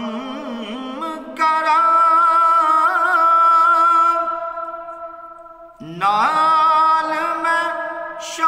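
A man singing a Punjabi naat with no accompaniment, drawing out long held notes with wavering ornaments. One phrase swells about a second and a half in and fades away, and a new phrase begins about six seconds in.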